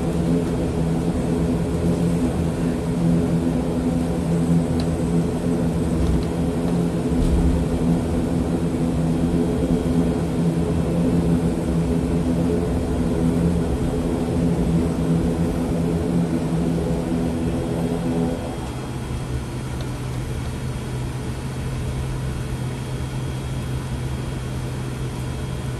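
Cabin noise of an ATR 72-600 taxiing, heard beside its left Pratt & Whitney PW127M turboprop: a steady hum of several low tones over a rumble. About eighteen seconds in the engine note changes, thinning to a single lower hum and dropping slightly in level.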